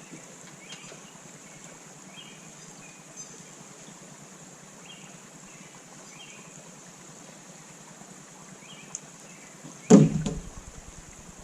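Steady outdoor background hiss with faint short chirps here and there; about ten seconds in, a single loud thump with a brief rattling decay.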